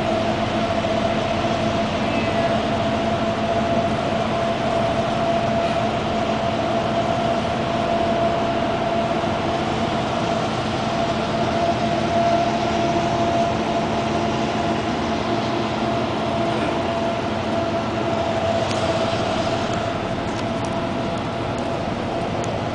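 Steady cabin drone of a moving coach bus: engine and road noise with a constant low hum running through it.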